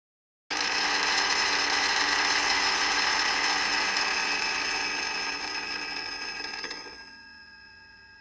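Countertop blender motor running at speed, mixing: it starts abruptly half a second in with a steady high whine, eases off and cuts out about seven seconds in, leaving a faint fading ring as it spins down.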